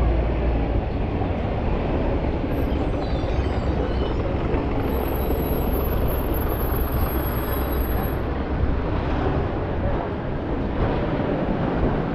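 Busy city street ambience: a steady low rumble of traffic and bustle, with a thin high-pitched whine for a few seconds in the middle.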